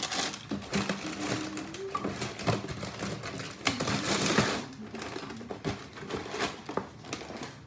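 A clear plastic bag crinkling and rustling as it is handled, with quick clicks and knocks of packaging; the rustling is busiest for the first four and a half seconds, then thins to scattered small knocks.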